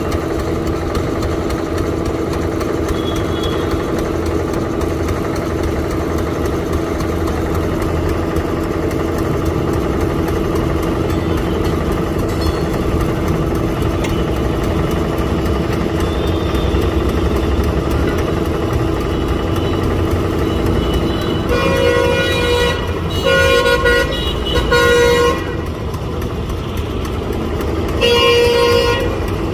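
A vehicle engine runs steadily underneath, then a car horn sounds in short blasts: three close together about three-quarters of the way through, and one more near the end.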